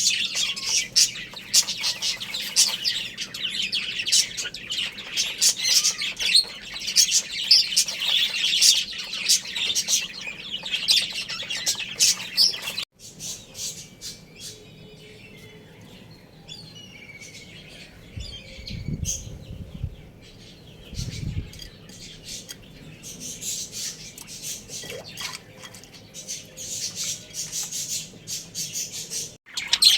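A flock of small cage birds chirping densely and continuously. About halfway through it cuts to a quieter stretch with only a few chirps and a couple of low thuds, then the busy chirping builds up again near the end.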